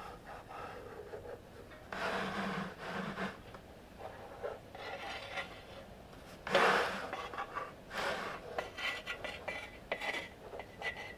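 Metal spirit level sliding and rocking on a wooden cutting board: metal rubbing and knocking lightly on wood in a few short bouts, the loudest about six and a half seconds in. The level wobbles because the board's surface is uneven.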